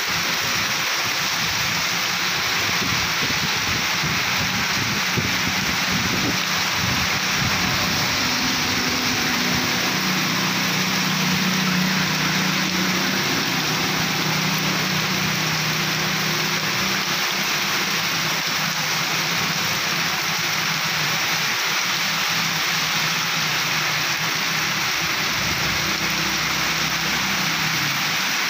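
Heavy rain pouring steadily on a flooded street. A low vehicle engine hum joins it about a third of the way in and fades out near the end.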